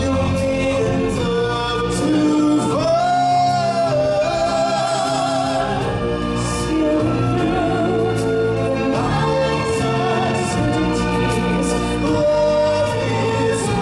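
Live stage-show music: a solo voice holding long notes with vibrato over a choir, instrumental accompaniment and repeated percussion hits.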